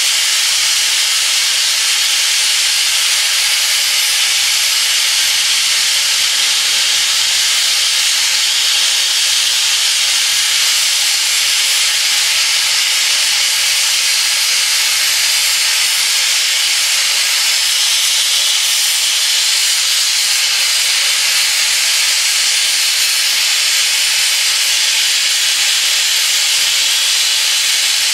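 Gas torch flame hissing steadily as it is held on a flat steel bar.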